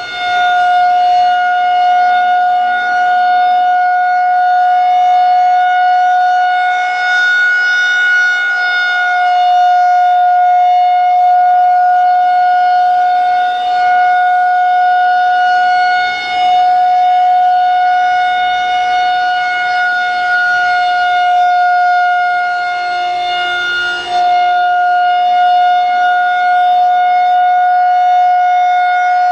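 Federal Signal 2001-130 rotating outdoor warning siren sounding a loud steady alert tone, one held pitch with strong overtones. The level dips briefly about every eight seconds as the rotating head sweeps past.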